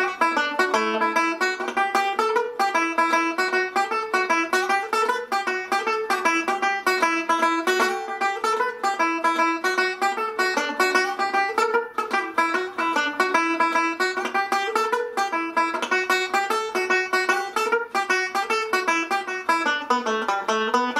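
Irish tenor banjo playing a solo Irish reel, a fast, steady stream of single picked notes with a bright ring.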